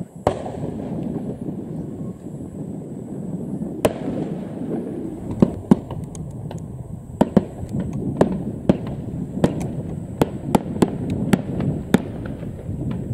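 Aerial firework shells bursting: a series of sharp bangs, a few spread out at first and then about one to two a second in the second half, over a continuous low rumble.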